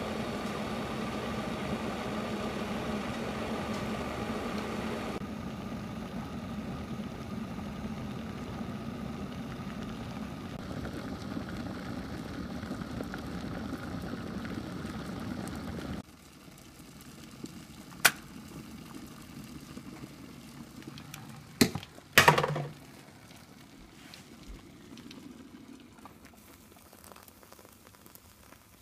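Water heating in a metal kettle toward the boil: a steady rushing hiss over a low hum that stops abruptly about halfway through. Then comes a sharp click and, a few seconds later, a cluster of loud knocks. Near the end, hot water is poured from the kettle onto coffee grounds in a filter, much fainter.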